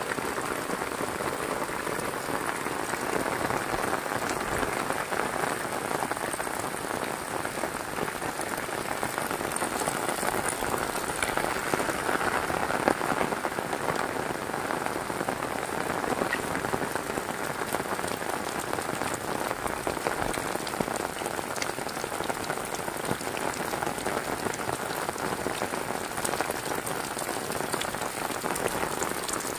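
Heavy rain falling steadily: a dense, even hiss of drops striking surfaces, with faint individual drop ticks through it.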